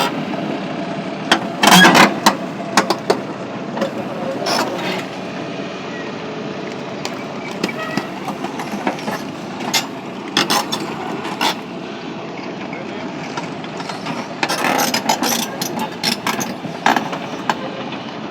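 Excavator engine running steadily, with irregular clattering and knocking as debris is worked, loudest in a cluster near the end.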